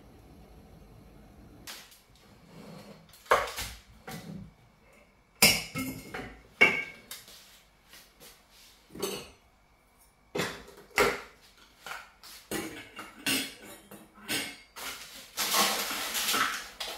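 A metal spoon clinking and scraping against a metal baking tin and a glass jar, in irregular clicks and knocks that start a couple of seconds in and grow busier toward the end. There is a short rustle near the end.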